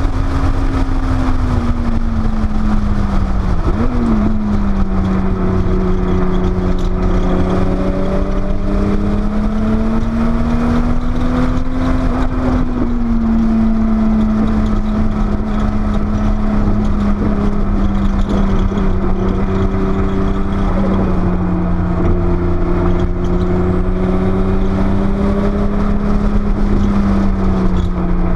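Porsche 930 Turbo's air-cooled turbocharged flat-six running hard at track speed, its pitch rising and falling slowly, with a quick break about four seconds in, over a steady low rumble.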